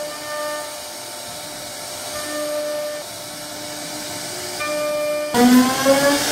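CNC router spindle whining with a steady pitched tone over the hiss of the bit cutting wood, the whine fading in and out. About five seconds in it turns suddenly louder and the whine glides upward in pitch.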